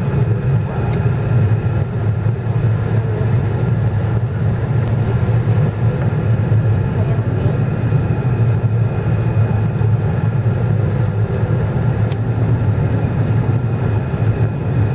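Steady cabin noise inside a Boeing 777 airliner on descent: a loud, even drone of engines and airflow with a low hum and a faint steady whine.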